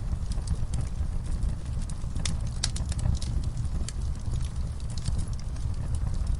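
Wood fire crackling in a fireplace: a steady low rumble of burning with irregular sharp pops and crackles, most of them bunched between about two and three seconds in.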